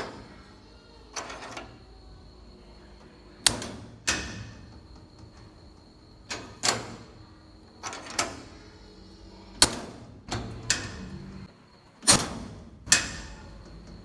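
Homemade steel gate latch with a rebar handle worked by hand, the bar lifted out of its catch and dropped back: about ten sharp metal clanks, mostly in pairs, each with a short ring.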